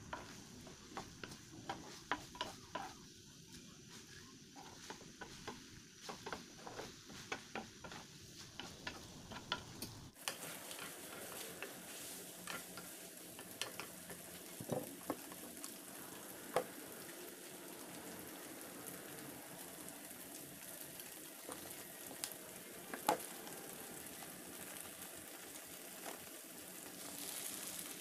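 Udon noodles and sausage sizzling in a nonstick pan while being stirred and tossed with a wooden spatula and chopsticks, with frequent light clicks and scrapes of the utensils on the pan. The background changes abruptly about ten seconds in, becoming hissier.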